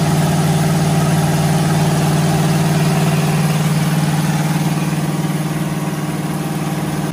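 Irrigation well power-unit engine running steadily with a strong low hum, turning the well pump through its PTO shaft; slightly quieter toward the end.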